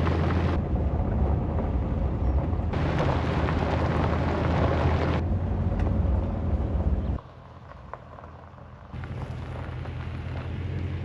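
Low, steady rumble of a car driving, engine and road noise, that drops and returns abruptly several times as the shots change.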